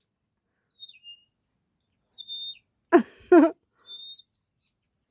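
A bird calling in short, high, thin whistled notes, three or four spread a second or so apart, one slurring down in pitch. About three seconds in, a short, louder human vocal sound cuts across them.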